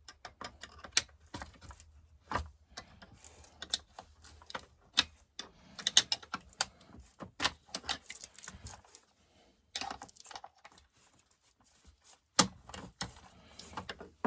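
Hand tools and small metal chainsaw parts clicking and clinking irregularly during disassembly of a Stihl MS261C.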